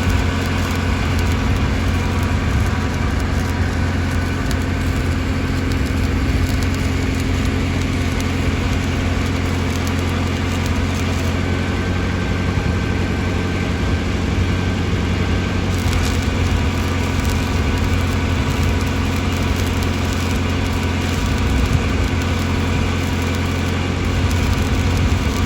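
Stick welding with 6010 electrodes: a steady crackling hiss from the arc over the constant low hum of the welding machine.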